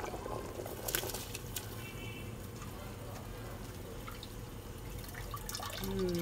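Spiced biryani stock with potatoes boiling hard in a large pot, bubbling steadily, with a few sharp clicks about a second in.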